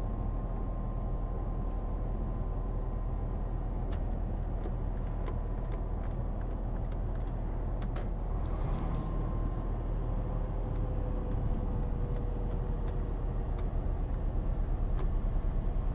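Truck being driven, heard from inside the cab: a steady low engine and road rumble with scattered small clicks and rattles. There is a short hiss about nine seconds in, and the rumble grows a little louder near the end.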